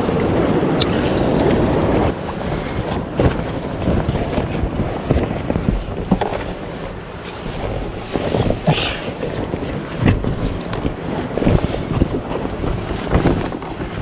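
Mountain stream water rushing steadily, with wind buffeting the microphone and scattered short knocks and rustles of handling.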